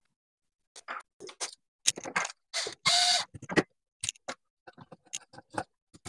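Irregular clicks, rattles and scrapes of electrical wires and a wall receptacle being handled as the wires are disconnected and pulled free of it, with one longer scrape about three seconds in.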